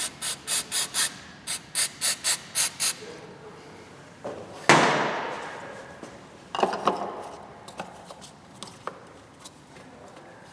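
Aerosol can of mass airflow sensor cleaner sprayed in quick short bursts onto the removed MAF sensor, about eleven puffs in two runs. After a pause comes one loud knock that rings out over about a second, then lighter handling clatter.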